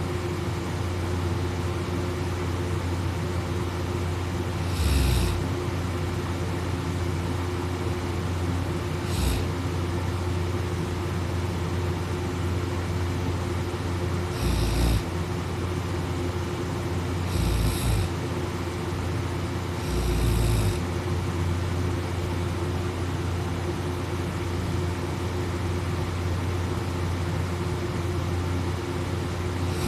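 A sleeping person snoring: about five short snores at uneven intervals, over a steady low background hum.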